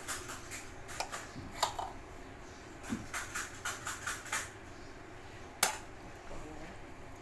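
Steel spoon clicking and scraping as cooked rice is pressed into the cavity of a raw whole chicken: a run of light clicks, busiest in the middle, with one sharper click about five and a half seconds in.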